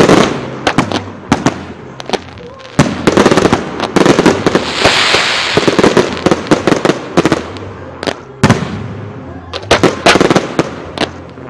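Fireworks display: shells launching and bursting in a rapid, uneven run of sharp bangs, with a spell of crackling hiss about halfway through.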